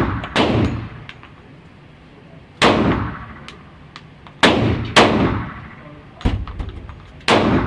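Six .45 ACP pistol shots from a Gen4 Glock 21, fired at an irregular pace with a pair in quick succession about halfway through. Each shot rings out and dies away over about half a second.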